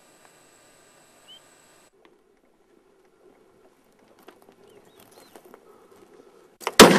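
A single shotgun shot near the end, sudden and very loud, with a long tail dying away after it. Before it there are only faint outdoor sounds: a few short bird chirps and light ticks of footsteps in dry scrub.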